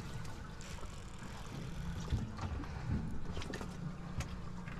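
Fishing boat on the water: a low steady rumble and hum from the boat's motor, with wind on the microphone, water sloshing and a few faint clicks.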